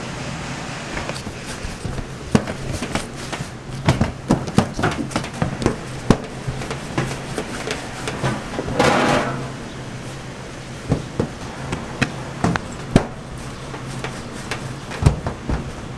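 Kitchen work clatter: scattered clicks and knocks of handling on metal trays and a steel counter, over a steady low hum of equipment, with a short noisy rush about nine seconds in.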